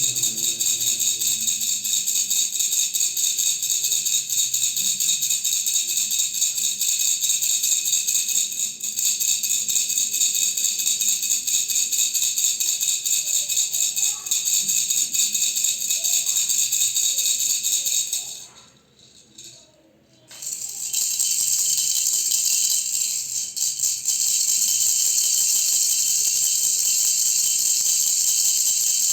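Baby's toy rattle (khulkhula) shaken continuously, a dense high-pitched rattle. It stops for about two seconds past the middle, then starts again with a slightly different tone.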